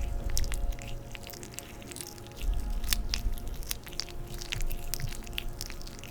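Massage oil on hands and skin close to the microphone, making irregular wet, sticky clicks and crackles with soft low rubbing underneath.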